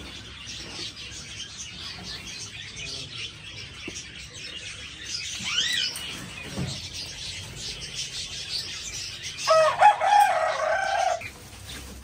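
Continuous high-pitched chirping and chattering of budgerigars, with one rising-and-falling whistle about halfway through. Near the end a rooster crows once, about a second and a half long, louder than the chatter.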